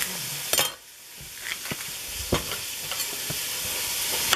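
Italian sweet sausage sizzling as it browns in a frying pan: a steady frying hiss that dips briefly about a second in, then builds again. Scattered knife knocks on a cutting board come through it as an onion is roughly chopped.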